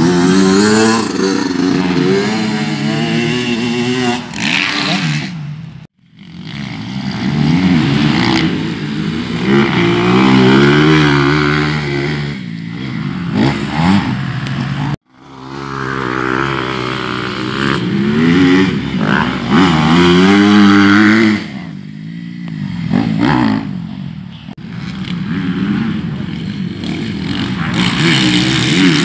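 Motocross bikes' engines revving hard and dropping back again and again as they ride the dirt track, the pitch climbing through each gear, with more than one bike heard at once at times. The sound cuts off abruptly twice.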